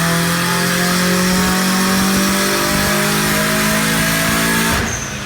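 Turbocharged car engine under full load, its pitch climbing slowly and steadily through the revs as on a dyno pull. The sound cuts off abruptly near the end.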